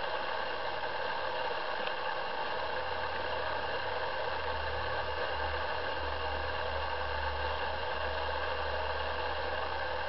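Steady hiss, with a low rumble coming in about two and a half seconds in. No bird calls stand out.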